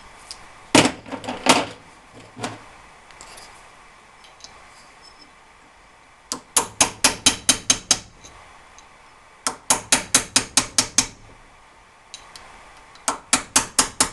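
Hammer tapping on metal in quick runs of blows: a few at first, then three runs of about five to eight strikes at roughly five a second, with short pauses between them.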